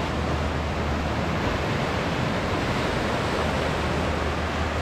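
Steady rushing noise of surf breaking in an artificial surf wave pool, with a low rumble of wind on the microphone underneath.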